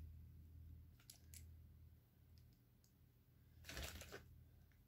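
Faint clicks of K'NEX plastic rods and connectors being handled and snapped together, with a brief louder burst of clicking about four seconds in; otherwise near silence.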